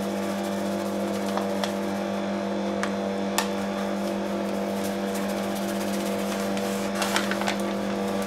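Electric stand mixer running with a steady, even motor hum as flour is poured into yeast water in its steel bowl, stirring a loose pre-dough. A few light clicks come through near the middle and again near the end.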